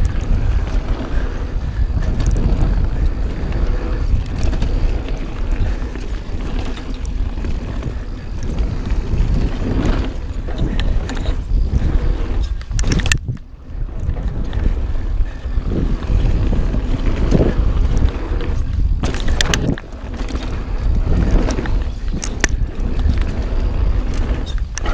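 Mountain bike riding a trail: wind rushing over the action camera's microphone and tyres rumbling over dirt, with scattered clicks and rattles from the bike. About halfway through, the noise briefly drops away.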